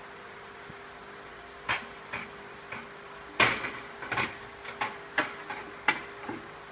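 A shelf being slid into a display fixture and set down on its brackets: a string of separate knocks and clatters starting a couple of seconds in, the loudest about halfway through, with a faint steady hum underneath.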